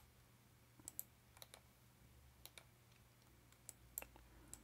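Faint, scattered clicks of a computer mouse and keyboard, about nine in all, several in quick pairs, over a faint low hum.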